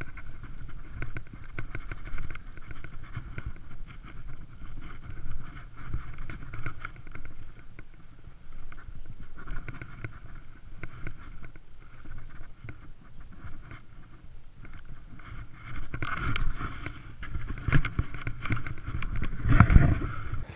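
Wind rumbling on the microphone, with irregular rustling and handling noise. A louder knock comes about a second before the end.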